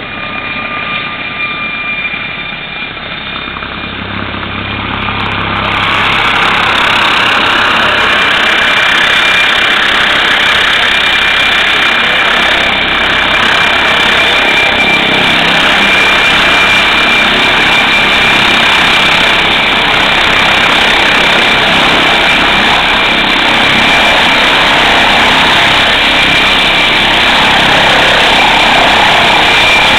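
MD Explorer NOTAR air-ambulance helicopter hovering in to land: steady turbine and rotor noise with a constant high whine. It grows much louder about five or six seconds in as the helicopter comes close, then stays loud as it settles toward the ground.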